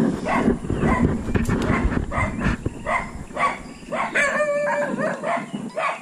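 An animal calling over and over in short yelping calls, two or three a second, with one longer held call about four seconds in. A low rumble of handling runs under the first half.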